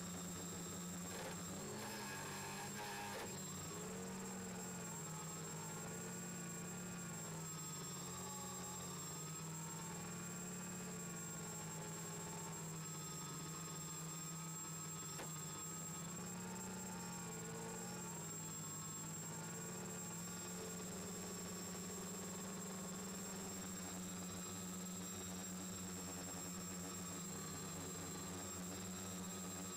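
The four Turnigy D2830 1000KV brushless motors and propellers of an X550 quadcopter hum steadily in low flight, heard close from a camera on the frame. Their pitch wavers up and down as the flight controller keeps adjusting the throttle.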